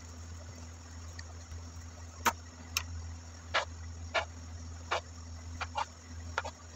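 Kitchen knife cutting peeled potatoes on a wooden chopping board: sharp knocks of the blade hitting the board, about one or two a second, starting a couple of seconds in. A steady low hum runs underneath.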